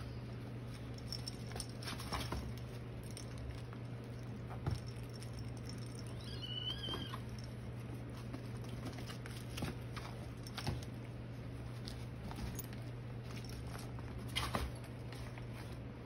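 Six-week-old Maine Coon kittens scampering and wrestling on a fleece blanket: soft pattering of paws and scattered light knocks, with one short high kitten mew about six and a half seconds in.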